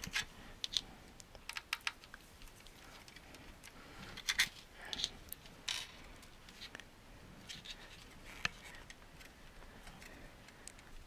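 Scattered light clicks, taps and scrapes of a Rodecaster Pro II's circuit board, cables and plastic case being handled and pressed on, as the board is worked to seat it back down in the case. The sharpest clicks come in a small cluster about four seconds in.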